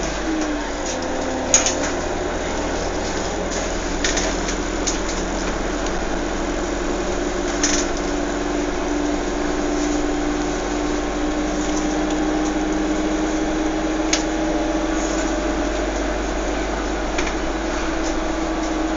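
A steady engine-like drone, a hum that drifts slowly up and down in pitch over a constant noisy background, broken by a few sharp clicks, about four in all.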